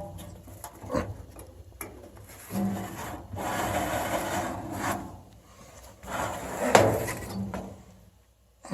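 Cardboard-framed furnace filter scraping and rubbing as it is slid out of its slot in the furnace, with a few knocks. One long scrape in the middle and a shorter one near the end with a sharp knock.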